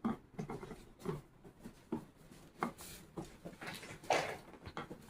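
Irregular light clicks, taps and rubbing of parts being fitted and seated by hand on a 16 gpm soft-wash pump, with a longer scraping rub about four seconds in.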